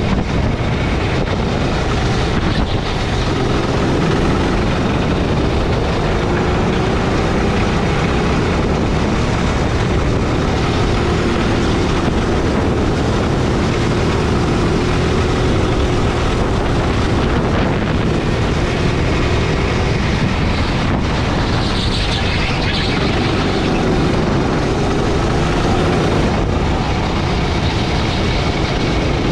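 Gasoline go-kart engine heard from the driver's seat, running hard around a lap, its pitch rising and falling through the straights and corners, under a heavy rush of wind and road noise.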